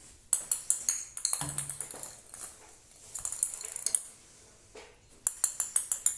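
Light plastic ping-pong ball bouncing and clicking on a tiled floor and against a wooden skirting strip as a cat bats it, in three quick runs of rapid clicks.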